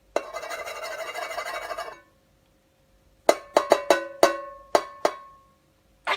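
A harsh buzzing sound for about two seconds. A little later a small bell is struck about seven times in an uneven rhythm, each strike ringing on briefly, with one short sharp sound near the end.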